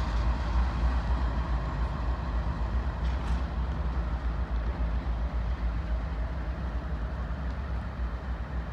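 Union Pacific diesel locomotives running, a steady deep engine rumble that eases slightly near the end as they pull away.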